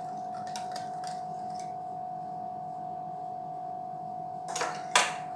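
A small wire whisk ticking lightly against a bowl of buttermilk a few times in the first couple of seconds, over a steady faint hum. Near the end come two short knocks about half a second apart, the second louder.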